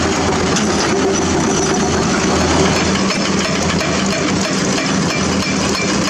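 Heavy hydraulic excavators' diesel engines running steadily.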